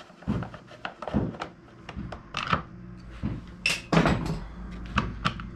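Screwdriver and hands working on a motorcycle's plastic air filter housing: irregular clicks, taps and knocks, the loudest about four seconds in.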